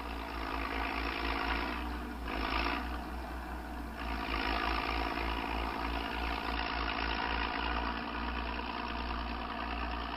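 Large farm tractor's engine running steadily under a low rumble.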